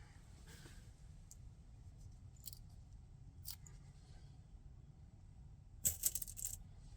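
Small metal lock parts clicking as a doorknob lock cylinder and its pin tumblers are handled during rekeying: a few light scattered clicks, then a quick cluster of sharper clicks about six seconds in.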